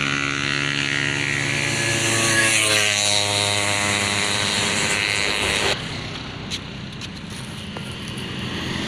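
Bus "telolet" multi-tone musical horn sounding a chord of steady tones that changes to a new set of notes about a third of the way in, then cuts off suddenly past the middle, leaving a quieter, lower noise.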